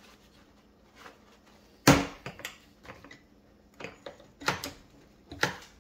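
Clamp and master cylinder being handled on a workbench: one sharp knock about two seconds in, then a few lighter clicks and taps.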